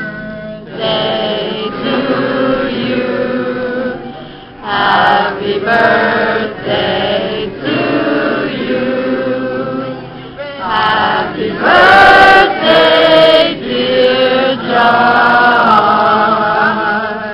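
A group of people singing together in chorus, accompanied by a strummed acoustic guitar, the singing growing louder about twelve seconds in.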